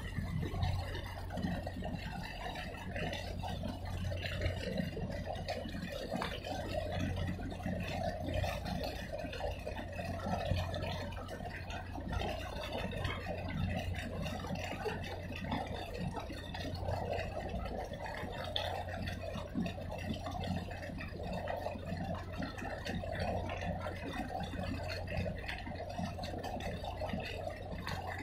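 Steady low machinery hum of a large container ship moving past slowly, with a wavering mid-pitched wash of noise over it.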